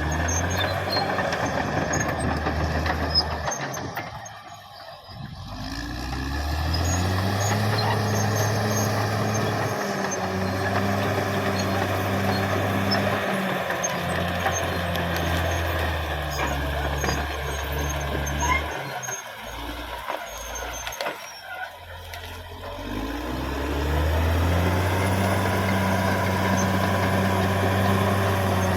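Caterpillar D6R XL bulldozer's diesel engine running under load, its note dropping about four seconds in and again for a few seconds past the middle, then pulling back up to a steady higher pitch.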